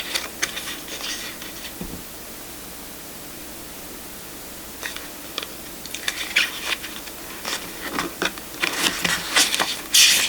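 Tarot cards being handled by hand: scratchy rustles and slides of card stock against card stock, in short bursts about a second in and again through the second half, with a quiet stretch in between.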